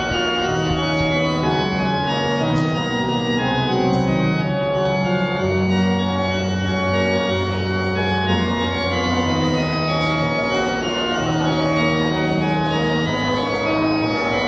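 Organ playing slow, sustained chords over a changing bass line.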